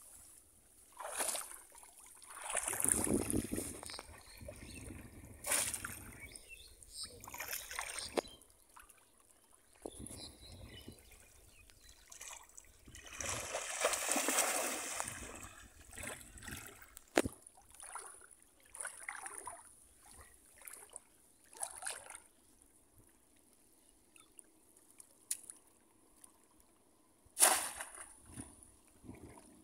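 Shallow flood water splashing and sloshing as people wade through it and plunge bamboo fish-trap baskets down into it, in irregular bursts. A long, rushing splash comes about halfway through, and the loudest, sharp splash of a basket slammed into the water comes near the end.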